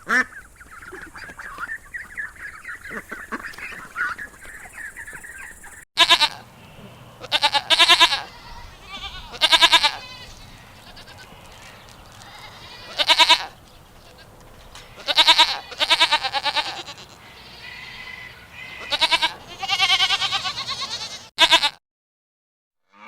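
Ducks quacking for the first few seconds. Then, after a cut, sheep bleating over and over: about eight loud calls of roughly a second each.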